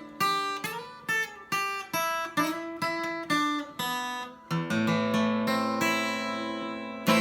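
Solo acoustic guitar playing a song's closing bars: single plucked notes about twice a second, then a chord left ringing, and one last strummed chord near the end.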